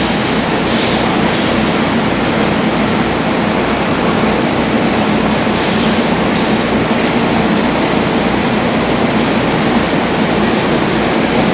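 Loud, steady machinery drone: a constant rushing hum with an uneven low throb underneath.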